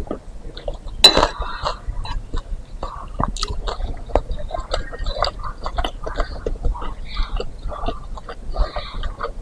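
Close-up mouth sounds of someone chewing meatball soup: irregular wet smacks and small clicks. A single sharp clink about a second in is the loudest sound.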